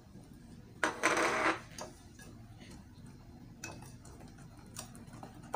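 Wire whisk stirring a thick cake batter in a glass bowl, with scattered light ticks of the whisk against the glass. About a second in there is a short, louder rush of scraping noise.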